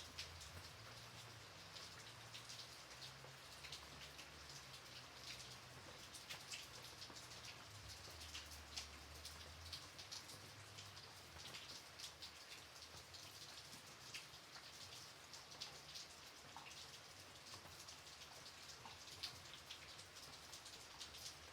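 Light rain falling: a soft hiss with many small separate drop ticks. A faint low hum runs underneath for the first half and stops about ten seconds in.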